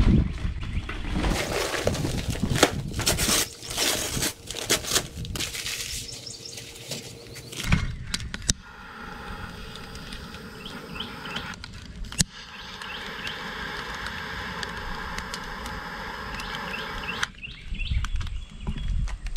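Charcoal briquettes clattering as they are poured from a paper bag into a metal chimney starter. About eight seconds in, a jet torch lighter lights with a click and hisses steadily as it is held to the chimney's holes. It clicks again partway through and cuts off suddenly a couple of seconds before the end. Birds chirp faintly.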